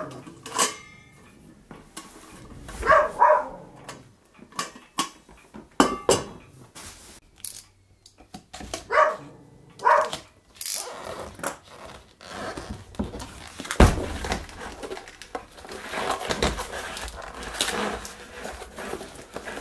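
A small stainless camping kettle cooker and its lid handled with light metal clinks and knocks, then paper and a cardboard box rustling. A dog gives a few short yips in between.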